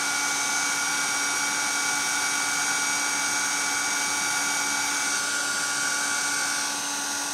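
Handheld craft heat tool (embossing heat gun) running steadily: an even fan hiss with a steady motor whine, dipping slightly near the end. It is drying wet watercolour paint on paper.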